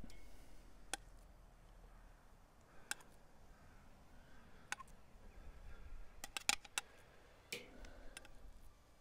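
Metal grill tongs clicking against a kettle grill's steel grate as meat-wrapped stuffed peppers are set down on it: a handful of sharp, light metallic clicks, with a quick run of them a little past the middle.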